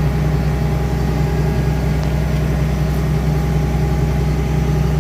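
Caterpillar 320 CL hydraulic excavator's diesel engine running steadily at close range, a low even hum with no change in speed.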